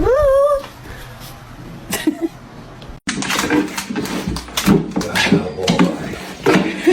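A dog gives a short whine-howl that rises in pitch over about half a second. After a cut, a jumble of short knocks and clicks follows, with low voice-like mumbling.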